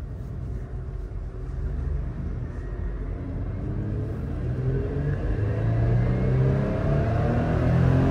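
Toyota Land Cruiser 70 series pickup's V6 engine heard from inside the cab, running with a low note as the truck drives off. It accelerates from about halfway through, the note rising and getting louder.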